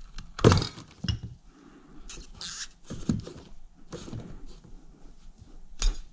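A pry tool and a 1997 Mitsubishi Eclipse front CV axle knocking and clunking against each other on a workbench as the boot clamp at the inner joint is pried off. There are several sharp knocks, the loudest about half a second in and another just before the end, and a brief scrape near the middle.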